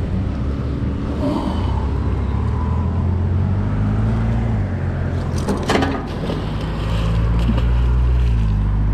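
Low, steady drone of vehicle engines on the bridge, its pitch shifting now and then, with a sharp splash and clatter about five and a half seconds in as the heavy catch drops off the magnet back into the river.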